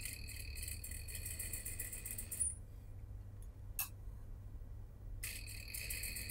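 Industrial single-needle sewing machine stitching fabric: a fast, even clatter that stops about two and a half seconds in and starts again about five seconds in, with a single click in the pause.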